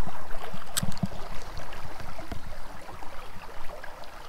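Stream water rippling and splashing, with scattered light knocks and a sharp click a little under a second in. The sound is louder in the first second or so, then settles to a steadier, quieter wash.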